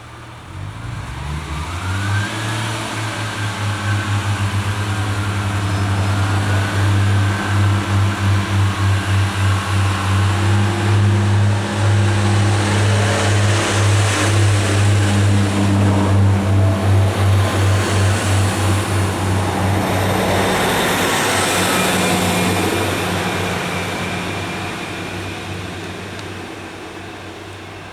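Diesel multiple-unit train pulling away from the station. Its engine throbs with a regular pulsing beat and a higher whine above it. The sound builds up, then fades in the last few seconds as the train moves off.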